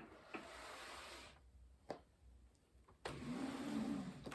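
Lego modules being separated and slid across a table: two spells of faint plastic scraping and rubbing, with a single click between them.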